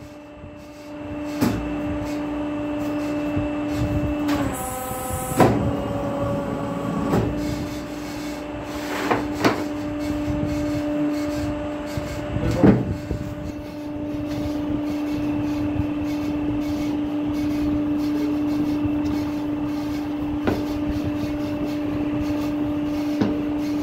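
Hydraulic collar-and-cuff cutting press with its hydraulic pump motor humming steadily at one pitch. Between four and five seconds in, the note dips under load and there is a short burst of hiss as the press makes a stroke. A few knocks come from wooden cutting boards being handled.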